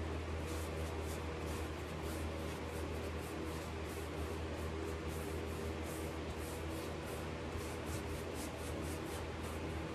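Round bristle brush scrubbing black furniture wax into painted wood detail: a run of short, scratchy brush strokes, about two to three a second, over a steady low hum.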